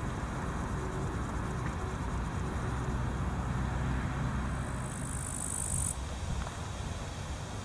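Steady low rumble of road traffic crossing an overhead bridge, with a grasshopper chirping in one high, buzzing burst of about a second and a half just past the middle.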